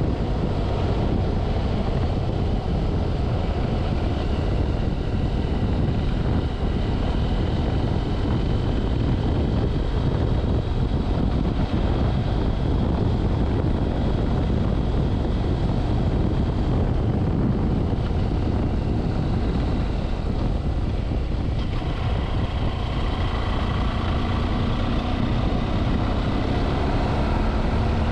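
Wind rushing over the microphone of a BMW F700GS on the move, with its 798 cc parallel-twin engine running underneath. Near the end the engine note rises slowly.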